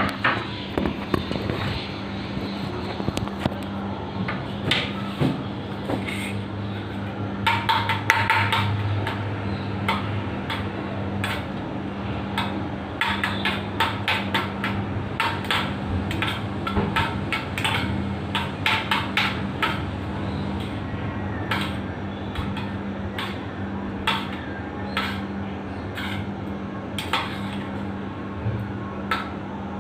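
A utensil clinking against a small stainless steel bowl as egg mixture for an omelette is beaten, in quick irregular runs of sharp clinks with short pauses between them.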